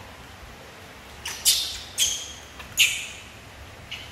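Macaque giving a run of short, shrill squeals, three loud ones about half a second apart, then a faint one near the end.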